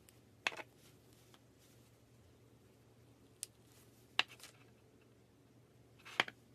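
Glitter slime being handled, giving a few short, sharp clicking pops: one about half a second in, a faint one past the middle, and two stronger ones, the last near the end.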